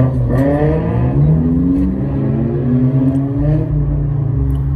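A car engine revving: its pitch climbs over the first second or so, then holds at a steady higher note over a deep, constant rumble.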